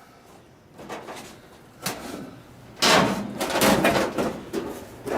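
Metal clattering and banging from a wrecked clothes dryer: a couple of knocks, then a louder run of repeated bangs and rattles from about three seconds in.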